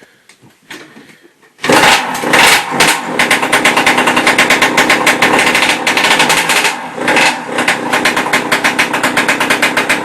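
Yamaha YZ85's two-stroke single-cylinder engine catching about two seconds in and running loudly with a fast popping beat, dipping briefly twice; the owner blames its running on the carburettor.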